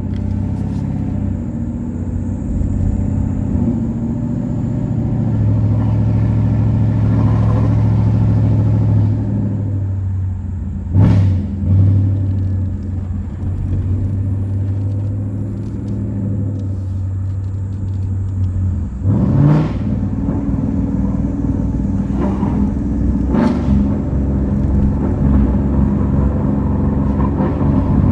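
2020 Ford Mustang GT's 5.0-litre V8 idling steadily through a straight-piped MBRP cat-back exhaust, with a couple of short throttle blips near the middle and a quick rev about two-thirds of the way in.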